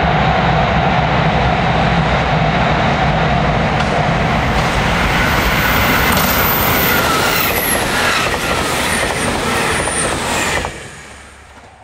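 JR Shikoku 2000-series tilting diesel express train passing close at high speed: loud engine and wheel-on-rail noise with rail-joint clatter, and high whines sliding in pitch in the second half. The noise drops away sharply near the end as the last car goes by.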